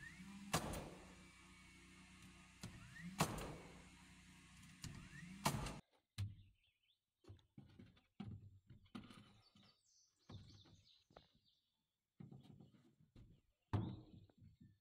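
Three sharp knocks about two and a half seconds apart as boards are fastened to the cabin's eaves with a power tool, over the steady hum of an idling tractor engine. After a sudden cut, faint scattered taps and knocks of boards being handled.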